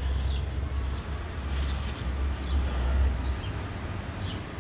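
A low rumble that stops about three and a half seconds in, with a few faint short bird chirps over it.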